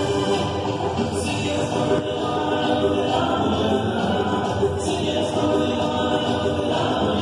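Mexican son music with singing, at a steady loud level.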